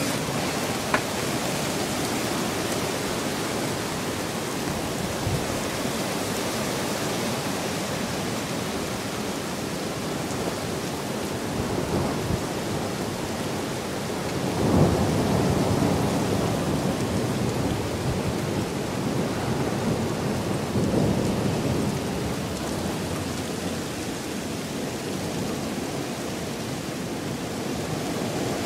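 Rain falling steadily in a thunderstorm, with a few louder swells of noise, the strongest about halfway through.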